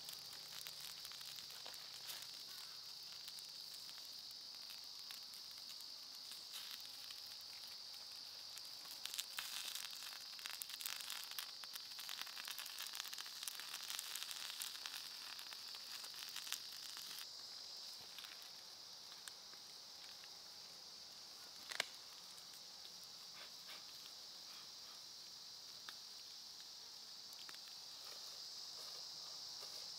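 Sausages sizzling and spitting over a birch-wood campfire, with small crackles from the fire, busiest in the middle and one sharp pop a little after twenty seconds in. A steady high insect drone runs underneath.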